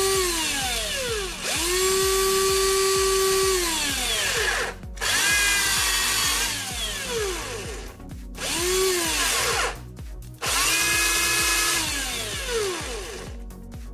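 Cordless drill motor, a 7.2-volt motor run on a 12-volt-plus pack of three 18650 lithium cells, whining in repeated spells of a few seconds as the trigger is squeezed and released. Each spell rises quickly in pitch, holds, and winds down. It has a slightly strange noise from the motor area, the sign of the motor being overvolted, which the owner fears could burn it out.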